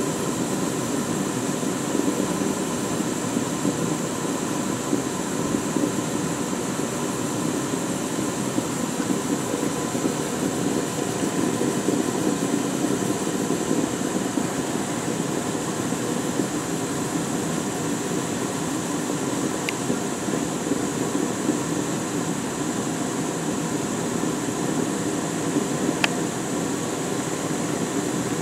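Gas burner flame running steadily under a test tube of baking soda, a continuous low rushing noise. Two faint ticks come in the last third.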